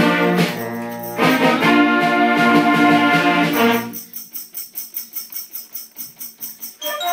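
School concert band of clarinets, saxophones and brass playing loud sustained chords, with a brief dip about half a second in and a cut-off about four seconds in. A light, even percussion beat of about four strokes a second then carries on alone until the woodwinds come back in near the end.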